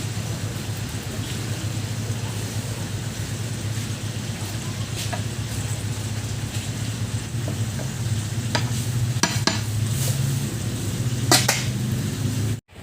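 Food frying in a pot while being stirred, a spoon now and then clicking and scraping against the pot, over a steady low hum.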